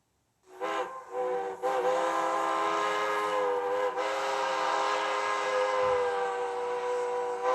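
Recorded steam locomotive whistle from a TCS WOWSound DCC sound decoder, played through the small speaker in an HO-scale locomotive's tender. Two short toots lead into one long blast with several notes sounding together.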